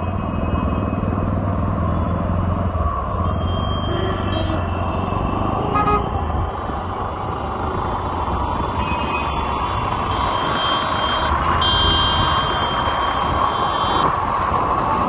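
City street traffic heard from a moving motorbike: engines running under a steady rush of road noise, with vehicle horns honking several times, the longest toots from about ten to fourteen seconds in.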